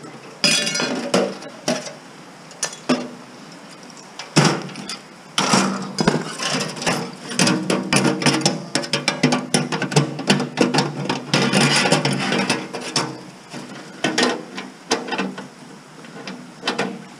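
Thin sheet-steel computer case being handled and pulled apart: repeated clanks, rattles and scrapes of the metal chassis and panels, busiest in the middle of the stretch with some ringing.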